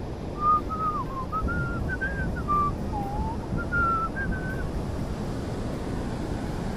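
A person whistling a short tune of a dozen or so notes, stepping up and down, over steady wind noise on the microphone and surf.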